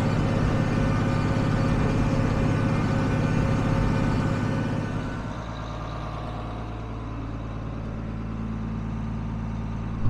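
John Deere 4440 tractor's six-cylinder turbocharged diesel running steadily. About halfway through, the engine sound becomes quieter and duller.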